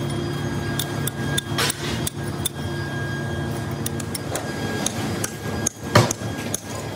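Hand hammer striking a chisel to chip baked moulding sand off a freshly cast gear: a dozen or so irregular sharp strikes, the loudest about six seconds in, over a steady low hum.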